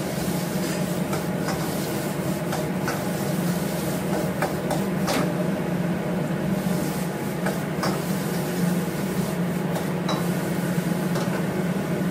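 Metal wok spatula scraping and knocking against a wok as noodles are stir-fried, in short irregular clicks and scrapes over the steady low roar of a gas wok burner.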